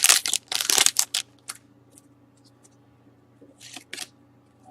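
Trading-card pack being torn open, its wrapper rustling and crinkling in a quick series of strokes, then quiet with two short rustles of cards being handled near the end.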